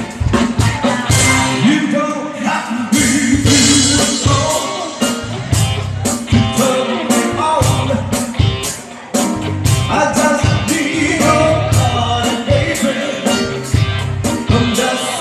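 Live band playing a rock-and-roll style cover with a lead singer over a steady drum beat, bass and guitar.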